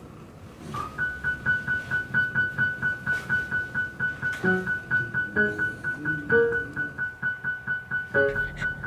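Solo piano music: a high note repeated about four times a second over lower notes that change every so often.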